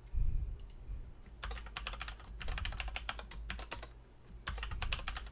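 Typing on a computer keyboard: a quick run of keystrokes, a short pause about four seconds in, then another run. A dull low thump comes right at the start.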